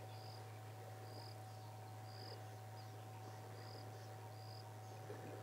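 Faint insect chirping: short high chirps repeated roughly once a second, over a steady low hum.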